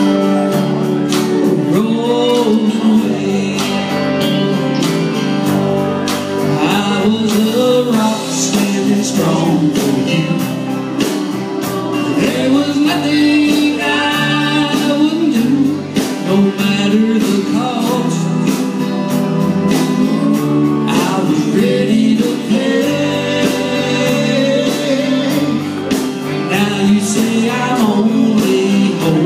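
Live country band playing a song: drums, acoustic and electric guitars and keyboard, with a man singing, heard through the sound system of a hall.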